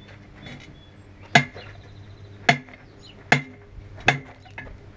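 Four sharp metallic clanks, about a second apart, each with a short ring. They come from the steel tire bar of a homemade tire changer as it is cranked around the rim to lever a heavy truck tire's bead off.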